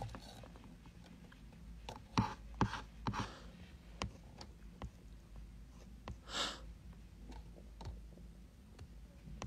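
Quiet room tone with a few faint, scattered clicks and taps, and a short breathy hiss about six seconds in.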